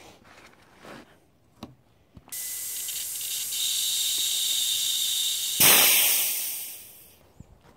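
Compressed air hissing steadily through a high-pressure fill hose into the reservoir of an Evanix Max Air .25 PCP air rifle being filled to 250 bar (3600 psi), after a few small clicks. About two-thirds of the way through, a louder rush of air cuts in and fades out over a second and a half, as the fill line is bled.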